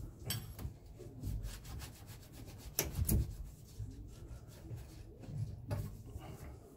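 Spanner work on the bolts and fittings of a Yanmar marine diesel's turbocharger during removal: an irregular run of metal clicks, taps and scrapes, loudest in a pair about three seconds in, over a low rumble.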